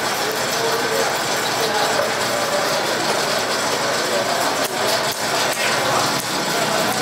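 Knife scraping the scales off a giant trevally, a rough repeated scraping over steady background noise, with a few sharp clicks in the second half.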